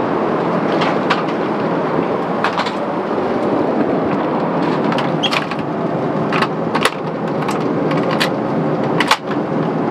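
Steady airliner cabin noise of an Airbus A350 in flight, heard inside the lavatory, with scattered light clicks and knocks of things being handled; the sharpest knock comes about nine seconds in.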